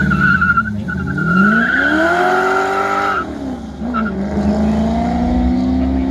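Holden Commodore race car launching from the hill-climb start line: the engine revs rise hard with the tyres squealing, the revs drop at a gear change about three seconds in, then the engine pulls up again in the next gear.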